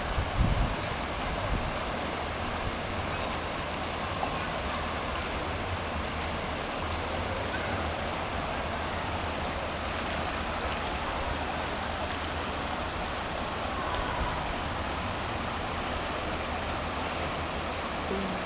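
Heavy rain falling, with running water, a steady rushing hiss. A few low thumps come about half a second in.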